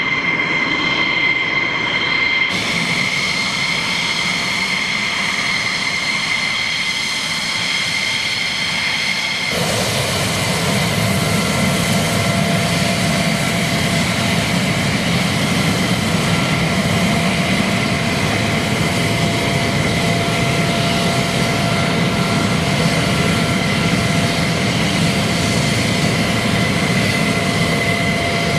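F-16C Block 52 Fighting Falcon's Pratt & Whitney F100 turbofan running at ground idle while taxiing and standing on the ramp: a steady high-pitched whine over a constant rush of exhaust. The tone shifts abruptly about two and a half and nine and a half seconds in, a lower steady hum joining after the second shift.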